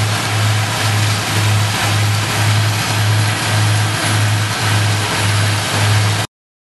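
Peterson 4310 tracked drum chipper running under load, chipping hardwood into biomass chips: a loud, rough mechanical din over a low hum that pulses about twice a second. It cuts off suddenly just before the end.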